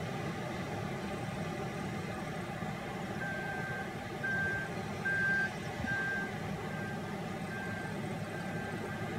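CAT 972M wheel loader's diesel engine running steadily, with its reversing alarm beeping about seven times from about three seconds in, loudest in the middle and fading toward the end.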